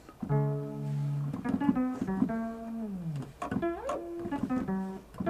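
Software-synthesized keyboard notes computed from a mathematical formula graph: sine-times-exponential components added like organ harmonics, each note a rich stack of harmonics that fades away. Several notes are played one after another, some overlapping, and one slides down in pitch midway.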